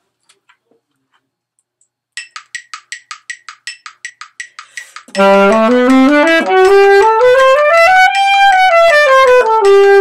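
A fast, even ticking, about six ticks a second, then about five seconds in an alto saxophone comes in loudly, playing a quick scale that climbs note by note and steps back down.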